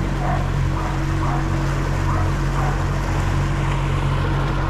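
150 hp outboard motor running the boat at speed, a steady drone under an even rush of wind and water past the hull.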